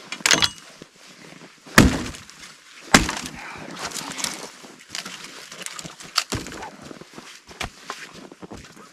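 Wood breaking as firewood is gathered: a few sharp cracks, the loudest about two and three seconds in, with smaller snaps and crackling between.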